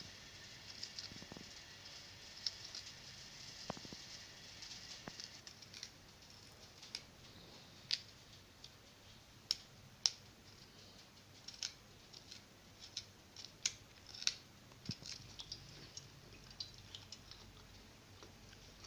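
A small knife cutting raw cauliflower florets into small pieces over a steel plate, making crisp, irregular snicks and clicks.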